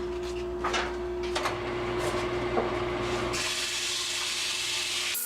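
Wood lathe running with a steady hum while sandpaper is pressed against the spinning cedar blank: a few brief scrapes at first, then a steady high hiss of sanding from about halfway, which changes abruptly near the end.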